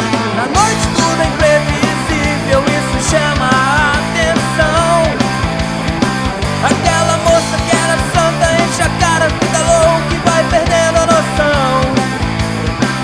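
Punk-leaning rock band playing an instrumental passage with no vocals: a steady drum beat and bass under a high melody line of gliding, bent notes.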